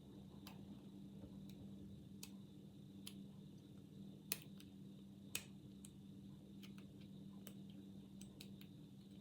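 Faint, irregular ticks and clicks of a homemade hacksaw-blade half-diamond pick working the pin tumblers of an old Yale padlock under medium tension, with two louder clicks a little past the middle. A steady low hum sits underneath.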